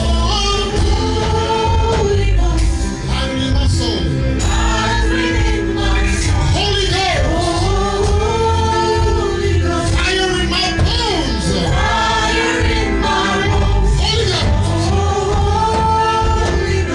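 Gospel worship music: voices singing over a band with steady bass and sustained keyboard tones.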